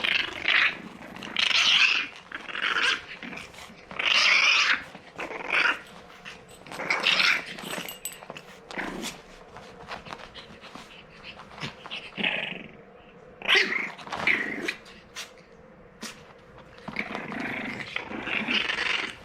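French bulldog puppy growling in short, irregular bursts with quieter gaps between them.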